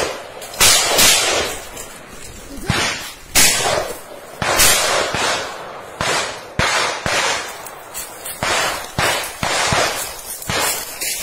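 Gunfire in a forest firefight: about a dozen sharp shots at irregular intervals, some close together, each trailing off in echo.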